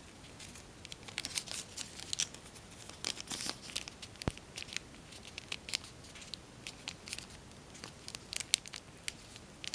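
Origami paper of self-made tissue foil rustling and crinkling in the fingers as a small tip of the model is folded in and creased, with short, irregular clicks throughout.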